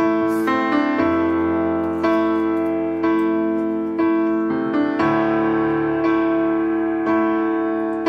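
Background music played on a piano-like keyboard, with a new chord struck about once a second and left to ring.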